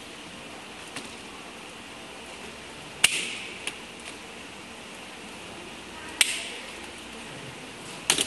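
Plastic panels of a collapsible chicken transport crate snapping into place: a few sharp clicks, the loudest about three seconds in, another about six seconds in and a quick double click near the end, over a steady hiss.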